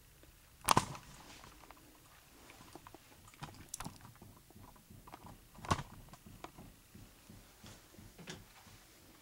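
A few scattered sharp clicks and knocks in a quiet small room. Two louder ones come about a second in and again a little before six seconds, with fainter ticks between.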